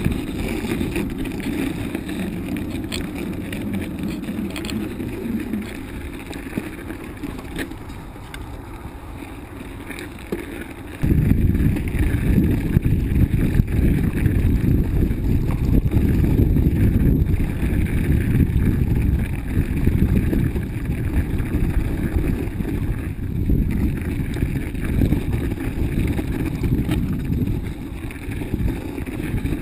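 Bicycle ridden over rough, snowy trail ground: steady rumble and rattle of the tyres and bike, with wind on the microphone. About eleven seconds in it turns suddenly louder and stays that way.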